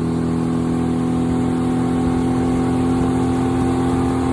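Boat motor running steadily under way, a constant engine drone with a rushing noise underneath.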